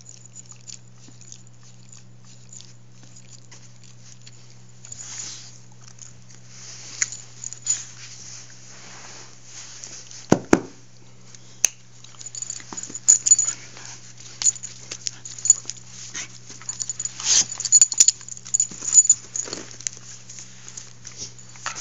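A herding-breed dog play-fighting with a person's hand: scuffling and mouthing, with one loud burst about halfway through and busier scrabbling and sharp clicks in the second half, over a steady low hum.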